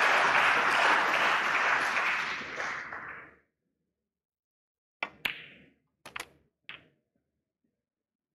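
Audience applause fades out over the first three seconds. Then, after a pause, snooker balls click: a cue striking the cue ball and the sharp crack of the cue ball hitting the black, then softer knocks about a second later as the black drops into the pocket.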